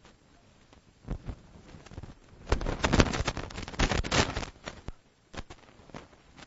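Drawing on a classroom board: a couple of taps, then scratchy strokes for about two seconds starting around two and a half seconds in, followed by a few short strokes or taps.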